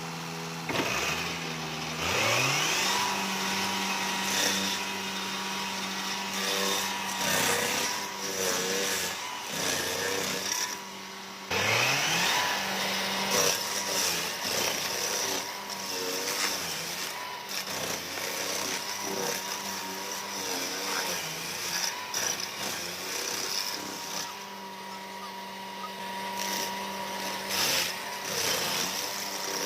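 Stump grinder engine running under load, revving up about two seconds in and again near twelve seconds after a brief drop. Irregular sharp crackles and knocks sound over it.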